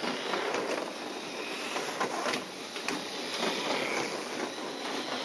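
Kyosho dNaNo 1/32-scale RC race cars running on the track: small electric motors whirring with a faint whine that rises and falls as cars pass, over a steady rush of tyres, with scattered light clicks.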